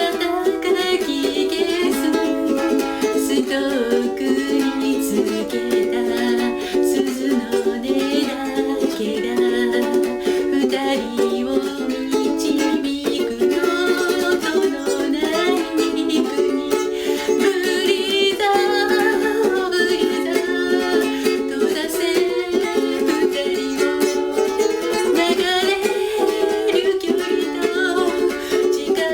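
Ukulele playing a song, with a voice singing along.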